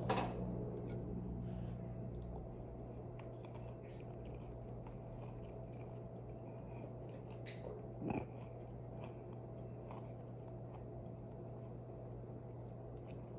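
Light scattered clicks and taps of cats moving about on a hardwood floor around a cardboard box, over a steady low hum. Two louder brief knocks stand out, one at the very start and one about eight seconds in.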